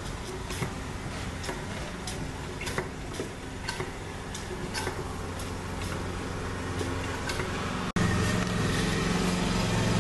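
Light irregular clicks, a few a second, from bench-bleeding a brake master cylinder: its piston is pushed in with a socket extension while fluid cycles through clear hoses back into the reservoir. A steady low hum lies underneath and gets suddenly louder about eight seconds in.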